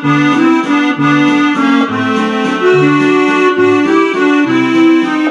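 Roland FR-4x digital accordion played on its register 14 musette voice, without the Cordovox organ voice. It plays a melody over a stepping left-hand bass and chord accompaniment.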